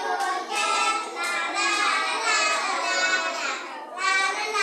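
Children singing a goodbye song, high voices holding long notes.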